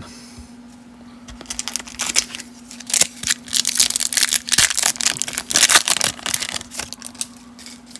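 A foil wax pack of 1991 Studio baseball cards being torn open and crinkled by hand: a run of sharp crackles from about a second and a half in, easing off near the end, over a faint steady hum.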